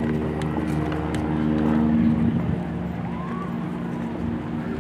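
An engine idling steadily, a constant low hum.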